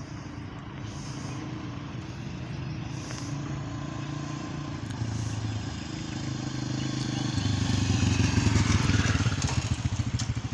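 A motorcycle engine running as it approaches along the road, getting steadily louder and passing close about eight seconds in.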